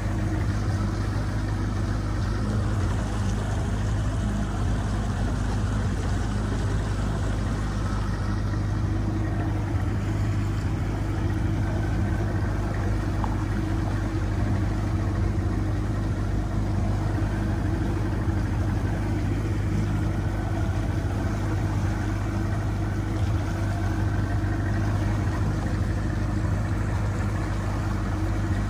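Boat motor running steadily at an even speed: a constant low hum that holds level with no revving or pauses.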